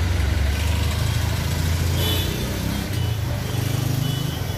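A vehicle engine running at a steady low idle, its note rising a little about three seconds in.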